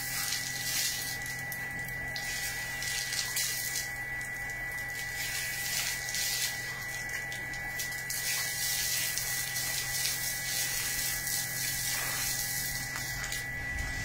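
Water running from a garden hose and splashing onto concrete, a steady hiss with a steady high tone beneath it.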